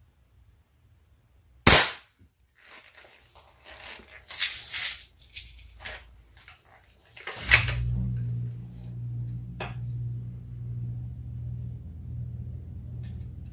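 A Daisy VL underlever spring-piston rifle fires a pellet on compressed air alone, with no caseless charge: one sharp crack a little under two seconds in. Clicks, rattles and rustles of the rifle being handled follow, and a steady low hum sets in about seven and a half seconds in.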